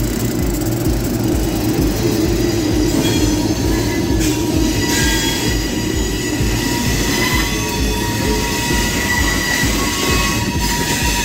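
Slow freight train passing close by: the trailing GE B23 diesel locomotive's engine drones as it goes past, then boxcars follow with wheel flanges squealing in steady high tones from about five seconds in, over a rhythmic low clatter of wheels on the rails.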